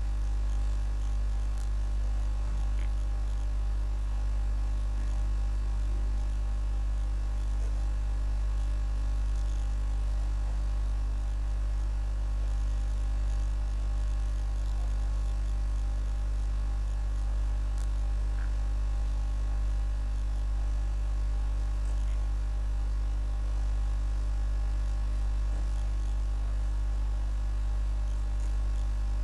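Steady electrical mains hum, a low buzz with several overtones that does not change.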